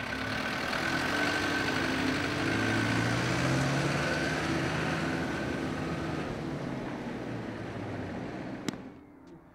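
Small cargo truck driving past on a dusty road: engine and tyre noise swell, are loudest about midway with the engine note rising, then fade as it pulls away. A single sharp click comes near the end.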